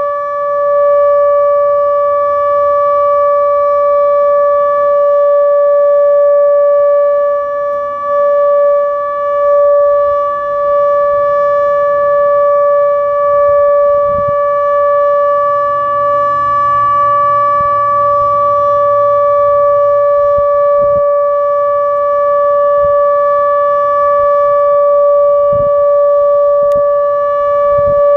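Outdoor tornado warning siren sounding a loud, steady tone that holds one pitch throughout, as in a scheduled siren test.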